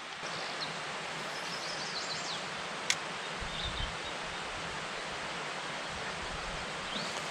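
Steady outdoor hiss by a pond, with a few faint high chirps and one sharp click about three seconds in.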